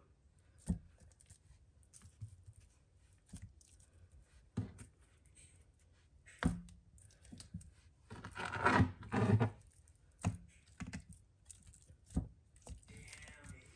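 Handling sounds as raw neck bones are set into a slow cooker crock: scattered soft knocks a second or two apart, and about eight seconds in a louder rustling scrape lasting about a second and a half.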